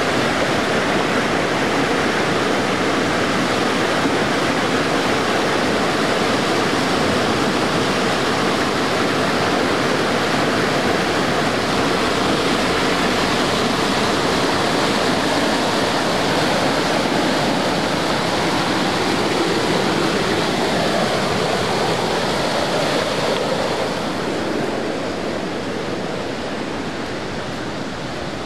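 Muddy floodwater rushing in a swollen creek, churning over boulders in a steady, loud torrent. It grows somewhat quieter near the end.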